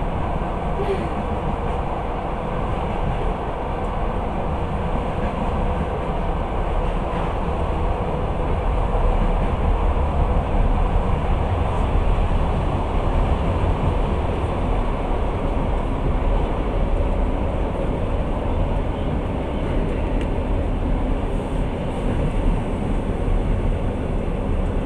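Passenger train running along the track, heard from inside the carriage: a steady rumble of wheels on rails.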